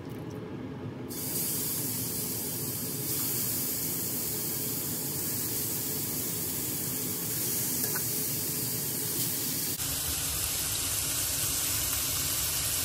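Seasoned chicken pieces frying in hot vegetable oil in a nonstick frying pan, a steady sizzle that starts about a second in as the chicken goes into the oil.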